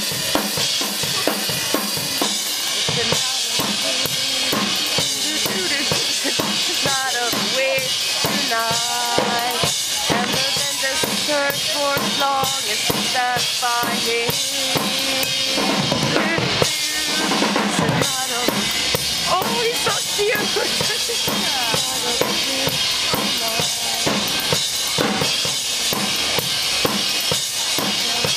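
Rock drum kit played alone in a soundcheck: a steady, dense stream of bass drum and snare strokes.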